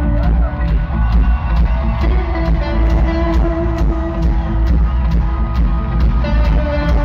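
Live rock band playing loud in an arena: a steady drum beat under held electric guitar notes, heard through a phone recording from the crowd.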